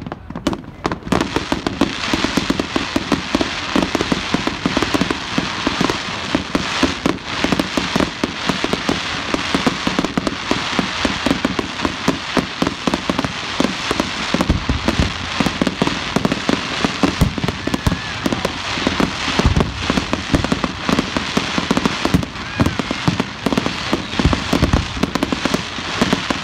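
Fireworks display: a dense, continuous run of bangs and crackling from bursting shells, with heavier low thuds at intervals, more of them past the middle and near the end.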